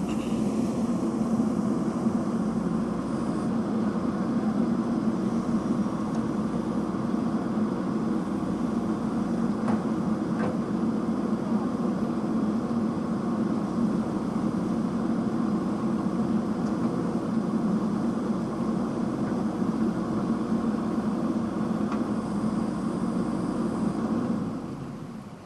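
Diesel engine of a JCB 3DX backhoe loader running steadily under work. The sound drops away sharply near the end.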